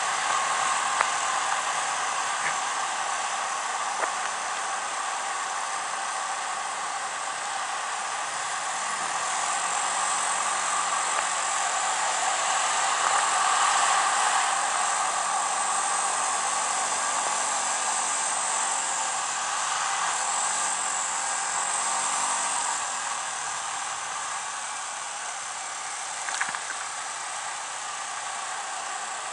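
Wind rushing over the microphone of a moving Yamaha Majesty S scooter, with the drone of its single-cylinder engine underneath. The engine note rises and falls with speed partway through, and there is a small click near the end.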